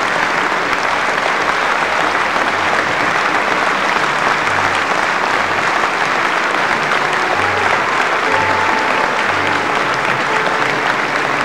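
Concert-hall audience applauding steadily after an operatic aria.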